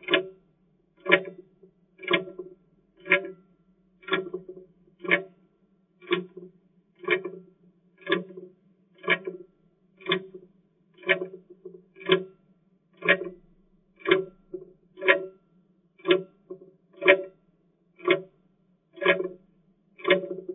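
Clock tick-tock sound effect ticking steadily once a second, each tick a sharp click with a low ring after it.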